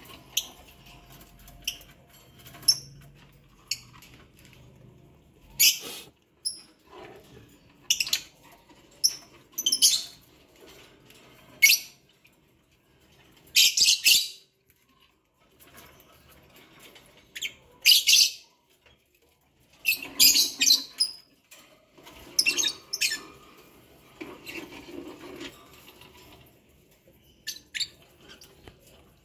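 A flock of lovebirds giving short, shrill calls at irregular intervals, over a dozen in all, some of them doubled or in quick clusters.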